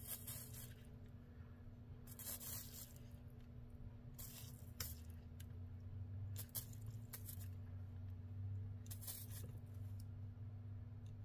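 Soldering iron running solder along a copper-foiled glass seam, the flux sizzling in short hisses every second or two, over a steady low hum.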